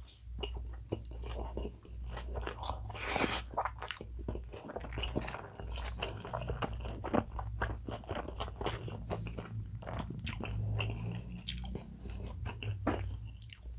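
Close-miked mouth sounds of a man biting into and chewing a slice of bacon potato pizza: a stream of irregular wet clicks and smacks, with one louder crackle about three seconds in.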